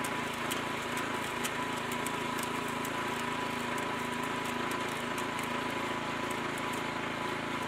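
Small single-cylinder petrol engine running steadily, driving a homemade auger branch shredder through a reduction gearbox. Faint irregular ticks and cracks come from the branch as the screw draws it in and chips it.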